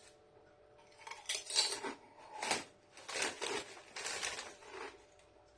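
Foil crisp packet crackling in a series of short rustles as a hand rummages down to the bottom of the bag of hand-cooked crisps.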